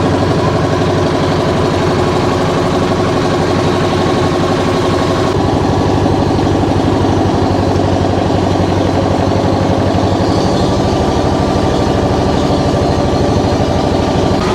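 Boat engine running steadily at a constant speed, loud and close, with an even, rapid firing beat.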